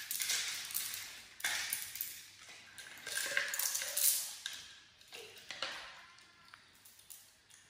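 Sunflower seeds rattling and scraping in a small plastic dish as a baby monkey picks through them and handles the dish, in irregular scratchy bursts that thin out toward the end.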